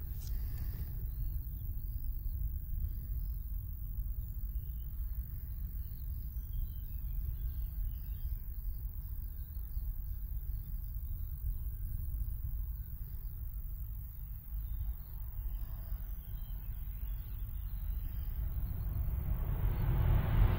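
Boeing 737 jet airliner on final approach: a steady low engine rumble that swells and grows louder near the end as the plane comes in over the runway to land. Small birds chirp in the background.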